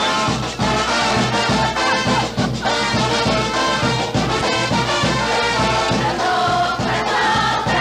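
Panamanian carnival tonada: a brass band playing over a steady drum beat, with a chorus of voices singing.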